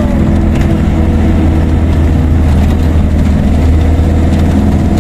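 Car engine running steadily with a deep drone, heard from inside the cabin while the car drives up a road that keeps climbing.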